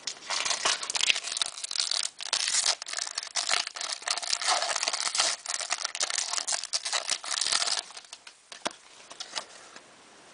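The wrapper of a 2009-10 Fleer Ultra hockey card pack being torn open and crinkled for about eight seconds, then a few faint clicks of card handling.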